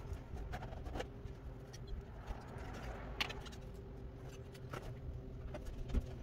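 Scattered, irregular clicks and knocks of power cables and parts being handled on an open-frame GPU mining rig, over a steady low hum.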